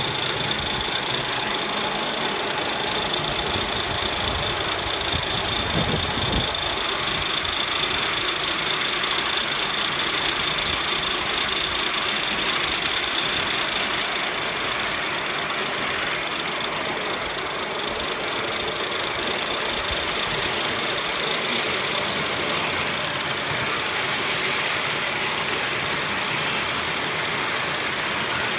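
3½-inch gauge LBSC Heilan Lassie live steam locomotive running steadily along a raised track. There is a continuous rush of exhaust steam with wheel and rail noise, heard from just behind the tender.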